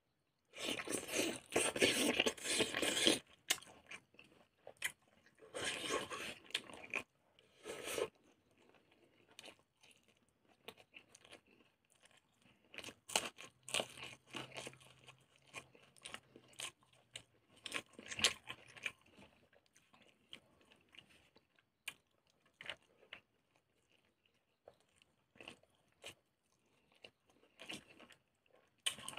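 Close-up chewing of a mouthful of cooked pork intestine, with loud crunchy bites and chews for the first three seconds and again around six and eight seconds. After that come softer, scattered wet mouth clicks and smacks.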